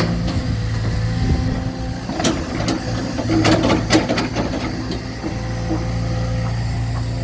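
Engine of construction machinery running steadily, with a cluster of sharp knocks and clanks about two to four seconds in.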